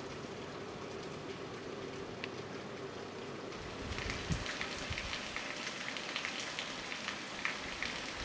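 Steady rain falling. About four seconds in it gets a little louder, with many separate drops pattering close by.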